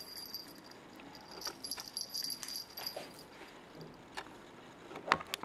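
A small jingle bell on a feather wand cat toy ringing in bursts as Bengal kittens bat and grab at it, with scattered soft knocks and one sharp knock about five seconds in.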